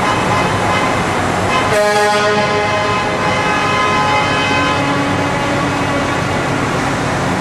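A truck horn sounds about two seconds in, a steady blast held for about a second and then fading out, over the steady noise of truck engines in the hall.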